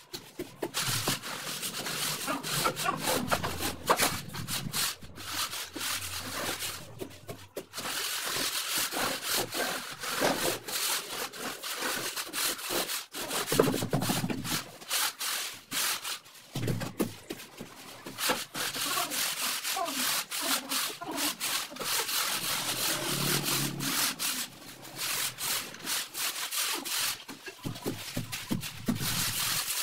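Hand trowel scraping and rubbing across damp sand-cement floor screed, a gritty scraping in repeated strokes with brief pauses.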